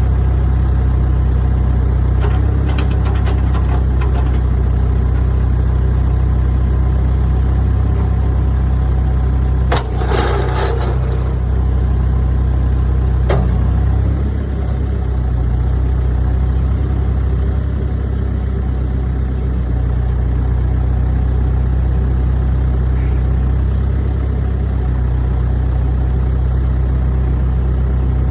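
New Holland B95B TC 4x4 backhoe's diesel engine idling steadily. A short run of sharp knocks comes about ten seconds in, and one more a few seconds later.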